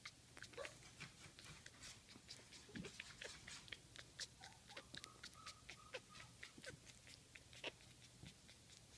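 Faint sounds from a Shih Tzu puppy: a few short, soft high squeaks about halfway through, among many small faint clicks.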